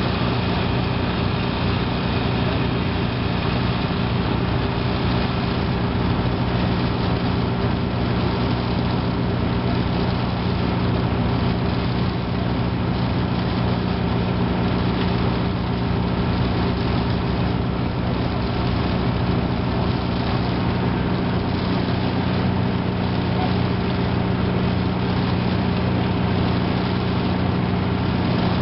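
Portable gasoline-engine hydraulic power unit for Hurst rescue tools running steadily, its engine holding an even pitch and level throughout.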